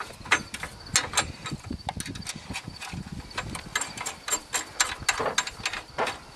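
Irregular metal clicks, clinks and scrapes of a steel clamp bracket and a wrench being worked onto a steel pipe pole, fastening a solar panel mount's wind brace.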